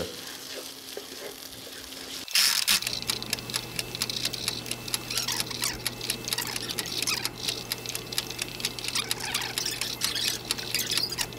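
A laksa spice paste frying in a pot, sizzling and crackling as a wooden spoon stirs and scrapes through it. About two seconds in, the sound turns into a fast, dense crackle of sizzle and scrapes, played back sped up.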